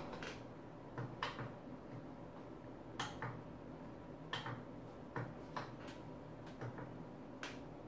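Office chair under a seated person giving off short, sharp clicks and knocks at uneven intervals, about a dozen in all, as the weight on it shifts.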